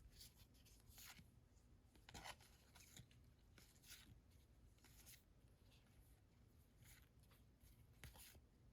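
Near silence with faint, scattered soft rustles and clicks of trading cards being handled and slid through the hands, about once a second.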